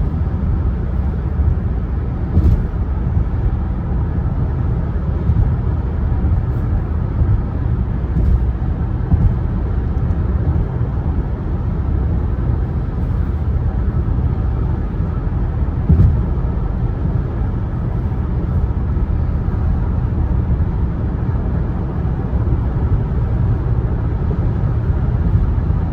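Steady low rumble of a moving vehicle heard from inside the cabin, with a couple of brief knocks, one a few seconds in and one about midway.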